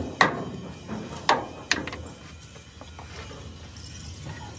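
Sharp metal-on-metal clanks from tools striking steel truck parts: three loud ringing strikes in the first two seconds, then faint clinking.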